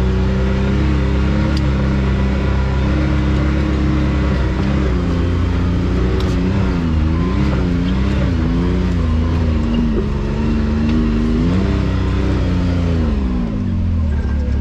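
Side-by-side UTV engine working at low speed: a steady run, then the revs rise and fall in repeated short blips of throttle, then drop away near the end.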